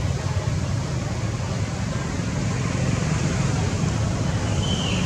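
Steady outdoor background noise with a low rumble, with a brief faint high chirp near the end.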